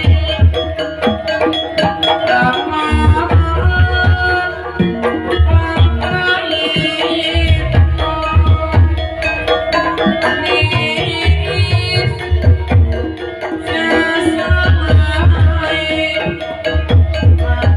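Javanese gamelan-style music: hand-drum beats over ringing, sustained tuned percussion, playing continuously.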